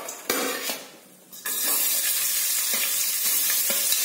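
A few clinks of a steel plate as sliced onions are tipped into hot oil in a pan, then the onions sizzle steadily in the oil from about a second and a half in.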